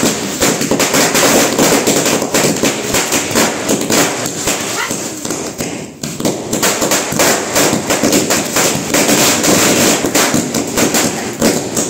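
A hazari, a long string of about a thousand firecrackers, going off in a rapid, continuous run of bangs, thinning briefly about six seconds in.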